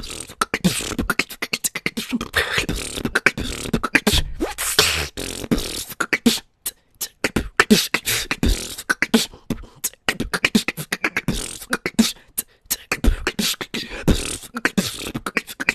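A woman's vocal beatboxing built on rapid 'straight K' snares: fast, sharp mouth clicks and hissing snares mixed with low bass hits, broken by two short pauses.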